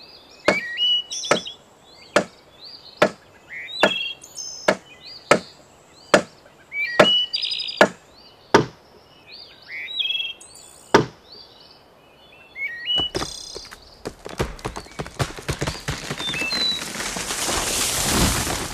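A billhook chopping into a green bamboo stem, sharp wooden strikes about once a second for a dozen blows, with birds chirping between them. For the last few seconds a rushing rustle swells up.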